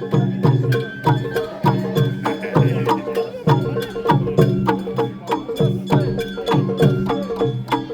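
Sawara bayashi festival music: drums and a gong struck in a quick, steady rhythm under a high bamboo-flute melody.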